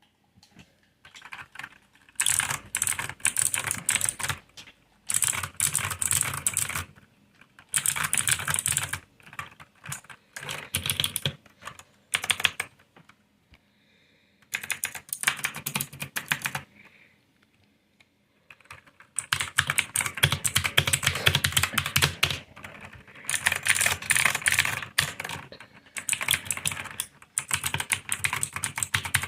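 Keyboard keycaps clicking in rapid runs, like fast typing, each run a second or two long with short pauses between; from about two-thirds through the clicking runs on nearly without a break.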